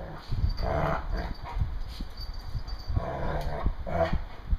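Dogs play-wrestling, with two bouts of growling, about half a second in and again about three seconds in, over scuffling and thumps of bodies on the floor.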